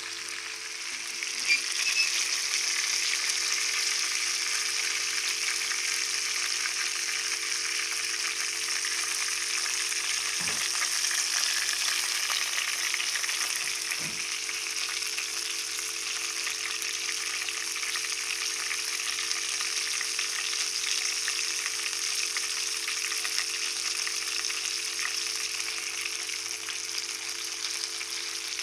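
Parrotfish frying in hot oil: a steady sizzle that swells about a second and a half in, with a couple of sharp pops.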